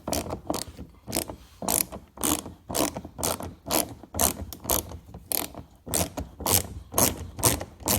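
Hand ratchet with a Torx bit clicking in quick back-and-forth strokes, about two a second, as it drives a door panel screw.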